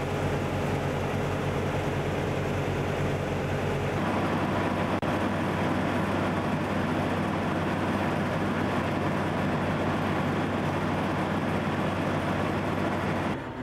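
Diesel engine running steadily with a low hum. The sound shifts slightly about four seconds in.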